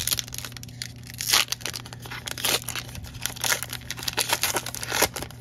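A Topps baseball card pack's wrapper being torn open by hand: a run of sharp tearing and crinkling noises, loudest a little over a second in and again near the end.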